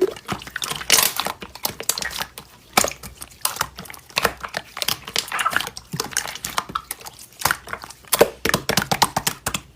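Slime being pressed and poked by hand, giving irregular crackling clicks and pops.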